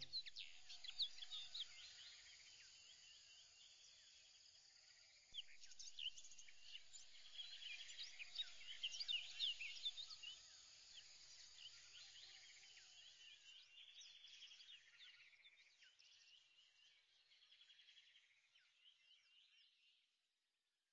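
Faint birdsong: many small birds chirping and trilling, busiest in the middle and fading out near the end.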